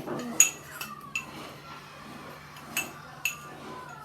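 Metal teaspoon clinking against a container while scooping out salt: about five sharp clinks, each ringing briefly.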